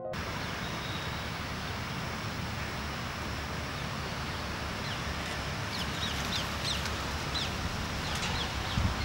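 Outdoor ambience: steady noise with a low wind rumble on the microphone. From about halfway, birds chirp in many short, falling calls.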